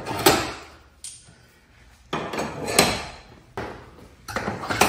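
Garage door rollers being popped into the steel hinges along the door's edge: a string of sharp metallic clacks, about one a second.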